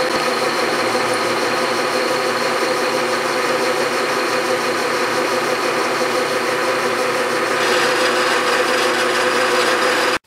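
Bridgeport milling machine cutting metal with an end mill, the table driven by the power feed at its slowest speed: a steady mix of machine hum, a high whine and cutting noise. It cuts off abruptly just before the end.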